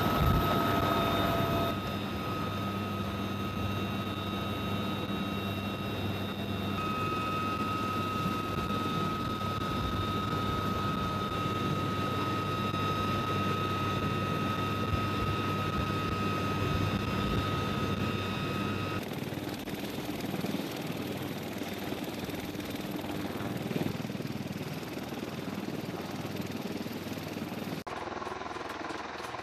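Bell UH-1Y Venom helicopter running steadily, a steady turbine whine over the rotor and engine noise, with no gunfire. The sound shifts abruptly a few times.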